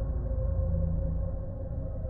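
Ominous ambient drone music: sustained tones over a low rumble.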